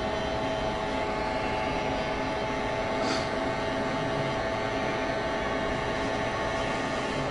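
Heat gun running steadily: a steady blowing rush from its fan with a constant motor hum, as it warms up before reflowing solder paste.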